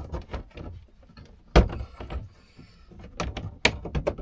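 Plastic dashboard trim being prised with a trim tool while a wire is fed in behind it: a string of clicks and knocks, the loudest about one and a half seconds in.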